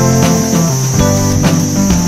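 Background music with plucked and strummed guitar notes over a steady beat, and a steady high-pitched buzz running underneath.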